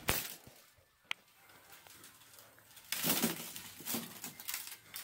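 Plastic K'nex rods and connectors being smashed apart: a sudden crash at the start, one sharp click about a second in, then rattling and rustling of loose pieces from about three seconds on.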